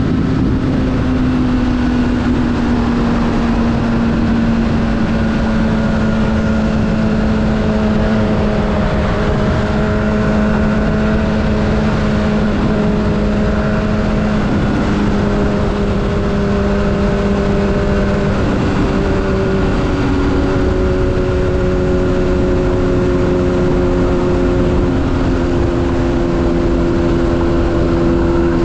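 Sport motorcycle cruising at steady freeway speed. A continuous engine hum drifts slowly in pitch under a loud, even rush of wind and road noise on the microphone.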